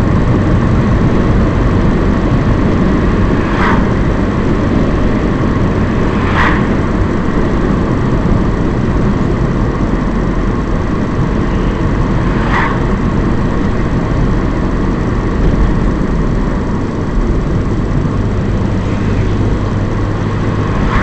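Steady engine and tyre rumble inside a moving car's cabin, with three brief sharp sounds at irregular intervals.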